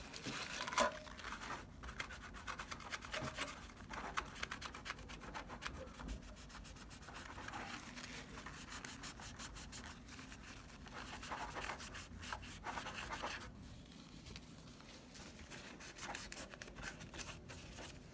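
Paper towel wetted with rubbing alcohol being rubbed back and forth over a PS4 heatsink's contact surface to wipe off old thermal paste, in quick repeated strokes that ease off for a few seconds about two thirds of the way through.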